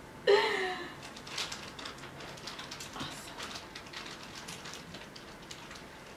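A short vocal exclamation with a falling pitch about a quarter second in, then scattered soft crackles and clicks as a cooked crab leg's shell is worked apart and the meat is pulled out and dipped in butter sauce.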